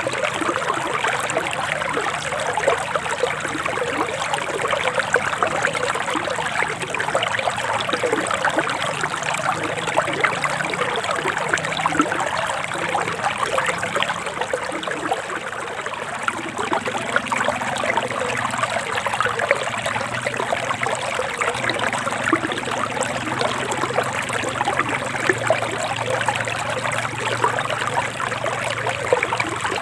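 A shallow forest stream trickling and babbling steadily over rocks.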